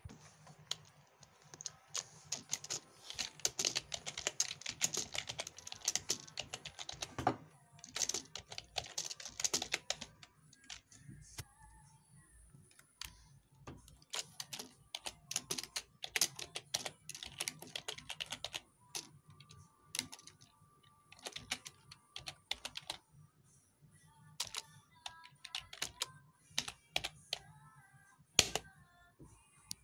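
Typing on a computer keyboard: quick runs of key clicks, densest in the first ten seconds and again a little past the middle, broken by pauses and scattered single keystrokes.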